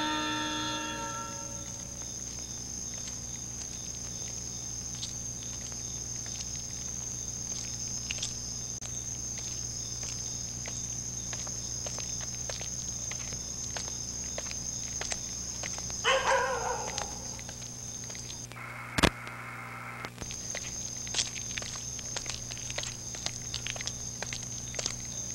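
Night ambience of crickets chirring steadily, with scattered footsteps and a steady low hum underneath. About two-thirds through, a short falling call sounds. Soon after comes a sharp click, and the chirring cuts out for a second or two before it returns.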